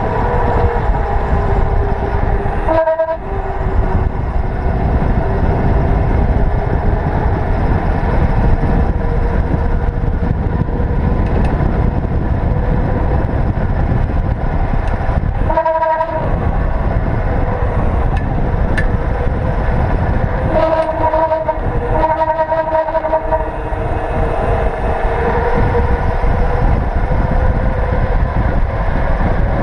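Wind buffeting the microphone and tyre roar as a cruiser bicycle coasts fast downhill on asphalt, with the tyres humming steadily in a tone that drifts slightly with speed. The rumble drops out briefly a few times, about 3, 16 and 21 seconds in.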